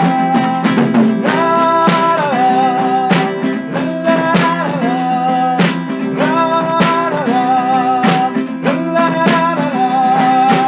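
Instrumental break in a cover of the song: guitar strumming a steady rhythm under a lead melody of held, slightly wavering notes.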